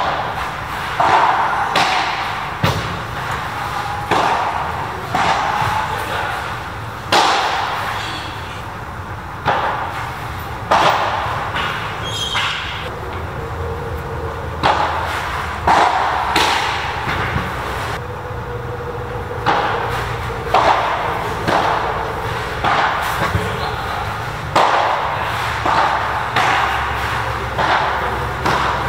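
Padel rallies: the ball struck back and forth with solid padel rackets, a sharp pock every one to two seconds with short gaps between points.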